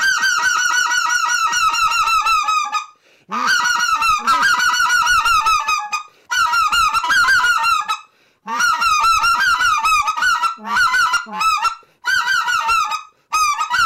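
RedBone goose call blown in clear-air style, giving a clear hail: long, loud strings of fast, high-pitched honking notes, broken into several runs by short breaths.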